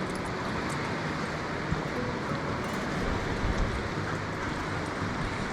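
Steady rush of surf and wind on a stormy shoreline.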